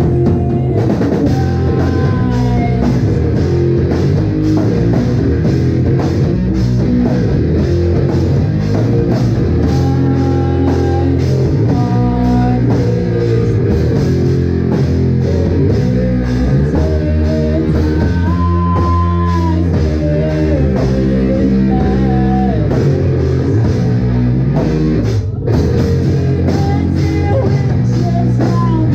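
Live rock band playing loud: electric guitar, bass and drum kit together. The sound drops out for an instant about 25 seconds in.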